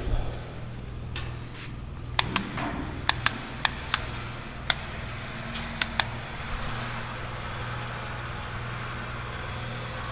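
A steady low mechanical hum, with a series of sharp metallic clicks about two to six seconds in.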